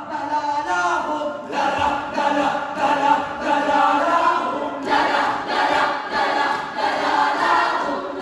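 A group of voices singing together like a choir, the sound growing fuller and louder about five seconds in.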